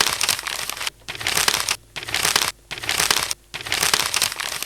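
Paper-crumpling sound played back from audio software, dense crackling in five short bursts, one about every second.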